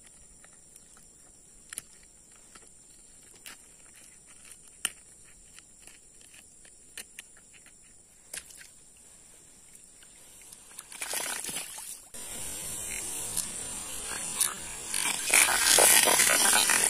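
Faint clicks of handling a snakehead and its lure for the first ten seconds or so, then loud splashing in shallow floodwater from about eleven seconds in as the released snakehead thrashes off.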